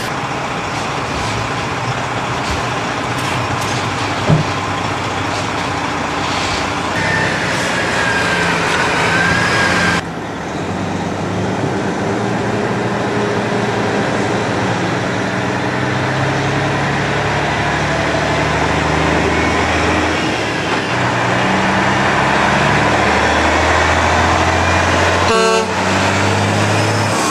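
Detroit diesel engine of a Kenworth eight-wheeler chip truck running steadily, growing louder through the second half. A brief toot comes near the end.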